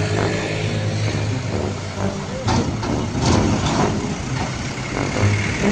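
Heavy road traffic of large trucks and buses: big diesel engines running steadily, with louder passing noise about halfway through.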